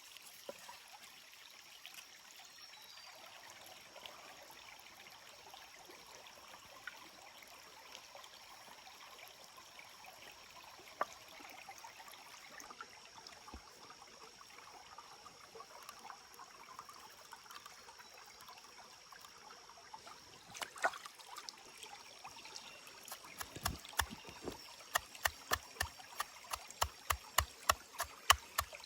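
Faint stream trickling, with a few scattered clicks. In the last few seconds comes a regular run of sharp knocks, about two a second.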